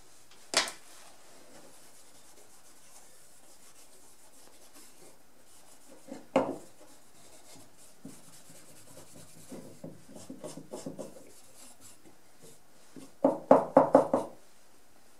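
A cloth rag rubbing finish into a wooden saw handle on a wooden bench: soft strokes around ten seconds in, then a burst of about six quick, louder strokes near the end. Two sharp knocks from the handle against the bench, about half a second in and about six seconds in.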